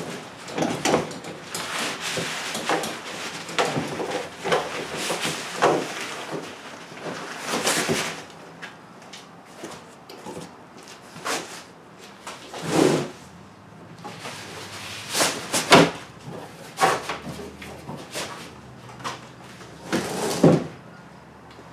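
Fabric camouflage kayak cover rustling and crinkling as it is pulled and smoothed down over a plastic kayak hull. It comes in irregular bursts, with a few louder knocks of handling.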